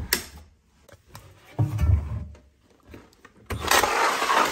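Laundry being handled at a front-loading washing machine: a few dull thumps, then about a second of loud rustling of fabric being pulled through the drum opening near the end.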